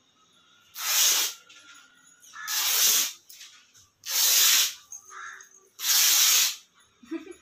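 Saree fabric being ripped by hand into long strips: four loud tearing rips, about one every one and a half to two seconds.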